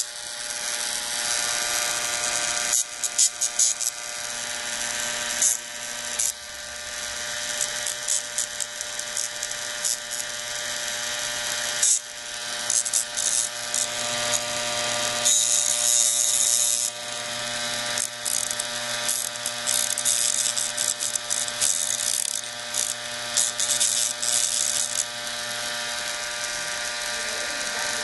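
Bare hard disk drive platter spinning with a steady whine of several tones, while a pocket knife blade is pressed against it as a makeshift grinder, giving repeated short bursts of high scraping hiss and a longer grinding stretch about halfway through.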